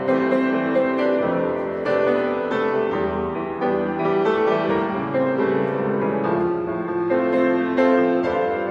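Grand piano played solo, a steady flow of chords and melody notes.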